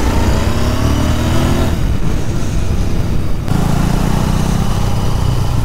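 Royal Enfield Interceptor 650's 648 cc parallel-twin engine heard from the rider's seat under way: its pitch rises as it pulls for about the first two seconds, breaks off for over a second, then runs steady again, over wind rush.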